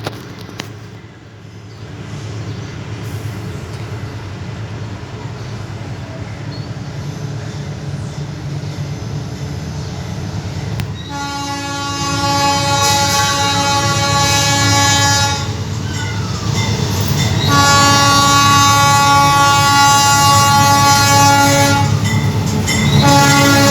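Diesel freight train with a pair of GE BB36-7 locomotives approaching, the engines' low rumble growing steadily louder. About eleven seconds in the locomotive's air horn sounds in long blasts: one of about four seconds, a short break, a second of about five seconds, and a third starting near the end.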